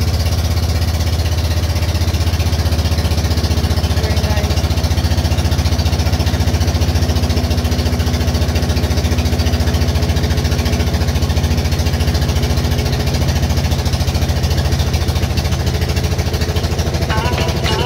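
Pump boat's inboard engine running steadily, a loud, even low hum with a fast regular pulse.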